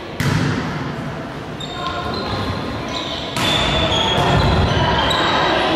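Volleyball rally in a gym: the ball is struck sharply twice, just after the start and again a little past halfway. Between the hits come short high squeaks, which fit players' shoes on the wooden floor, and voices ring in the large echoing hall.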